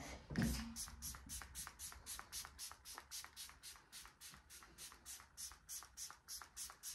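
Makeup spray bottle pumped in quick repeated squirts, about five short hisses of fine mist a second, spraying a face.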